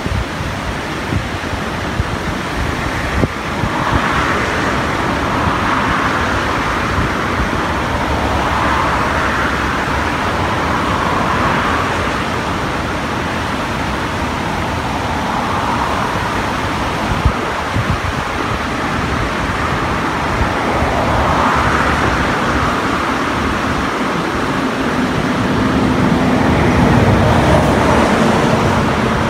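Rain-swollen muddy river rushing steadily, with a swell every few seconds and a low steady hum joining in near the end.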